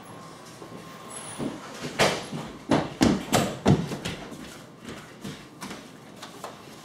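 Quick footsteps thudding on the floor, about seven steps in two seconds.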